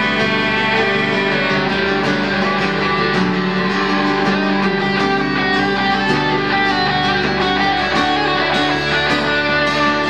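Instrumental guitar break with no singing: a steel-string acoustic guitar strummed alongside an electric guitar.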